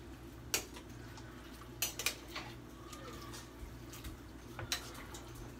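Metal spoon stirring in a pot of boiling pasta, knocking against the pot's side in a few scattered clinks over a steady low hum.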